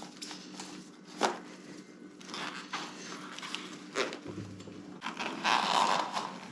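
Labelling material, most likely tape, being pulled out and torn off, in rasping stretches, with two sharp clicks about a second in and about four seconds in.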